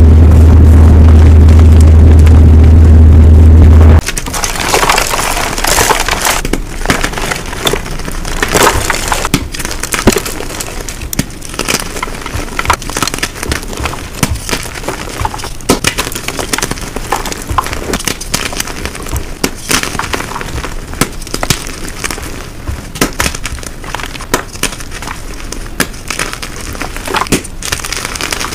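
A very loud, steady low drone that cuts off about four seconds in, followed by dense, fast crunching and crackling of powdery gym chalk blocks being crushed, played back at double speed.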